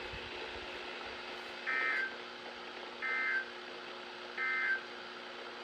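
NOAA Weather Radio end-of-message code coming through a weather radio's speaker: three short, harsh digital data bursts about a second and a half apart, closing the Required Weekly Test. A faint steady hum runs underneath.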